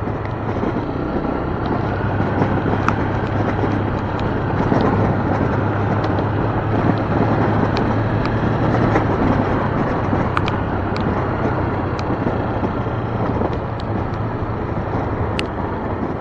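Keeway Brusco 125 motorcycle's single-cylinder four-stroke engine running at a steady cruising pace, under a steady rush of wind and road noise, with scattered small ticks.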